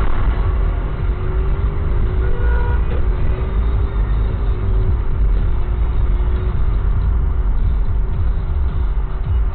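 Car engine and road noise heard from inside the cabin as the car pulls away from a standstill and gathers speed: a steady low rumble with a faint steady hum.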